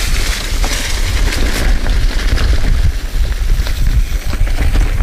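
Mountain bike riding fast down a dirt trail covered in dry leaves: steady wind rumble on the chest-mounted camera's microphone over the hiss of tyres on leaves and dirt, with frequent small clicks and rattles from the bike.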